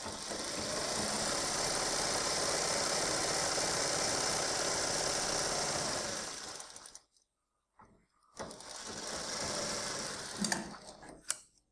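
Electric sewing machine running steadily as it stitches a folded edge of a fabric strip, stopping for about a second and a half about seven seconds in, then running again briefly. A few light clicks follow near the end.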